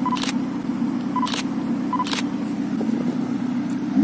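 Ferrari 488 Pista's twin-turbo V8 running steadily at low revs as the car creeps forward at walking pace. Three short sharp clicks sound over it, about a second apart.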